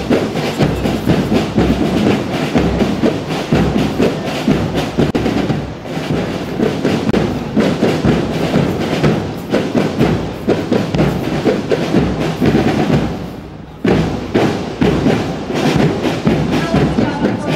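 Marching drum corps beating a stack of bass drums in a fast, dense rhythm of heavy strikes. The drumming drops off briefly about three-quarters of the way through, then picks up again.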